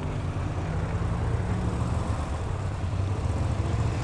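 Motorcycle engine running steadily with a low, even rumble and no revving.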